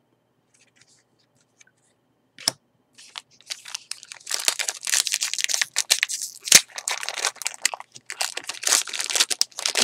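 Foil wrapper of a Topps jumbo baseball card pack being torn open and crinkled, starting about three seconds in, with a sharp snap about midway. Before it there is a near-silent pause with a single click.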